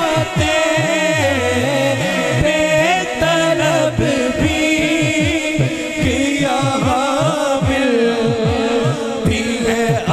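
A man singing an Urdu naat into a microphone, long ornamented lines with wavering pitch, over a fast, low, steady pulse.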